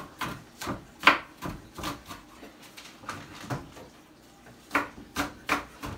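Kitchen knife chopping green onions on a wooden cutting board: uneven chops for the first few seconds, a short pause, then a steadier run of about three chops a second near the end.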